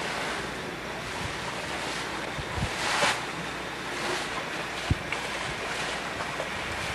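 Wind blowing across the microphone over the steady rush of sea water past a sailboat under way, with a brief splash about three seconds in and a few short low thumps of wind buffeting.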